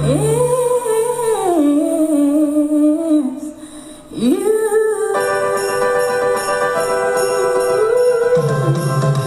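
Christmas backing-track music with a singing voice sliding between notes, a brief drop in level about four seconds in, then held notes.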